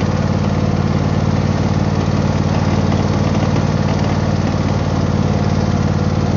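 Husqvarna YTH24V48 riding mower running steadily with a rattling noise, which the owner suspects is a bearing going out.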